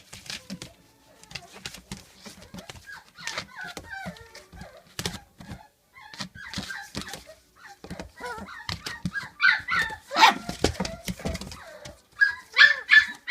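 Standard schnauzer puppies whimpering and yipping in short, high squeals, among scattered clicks and knocks. The yips get louder about ten seconds in and again near the end.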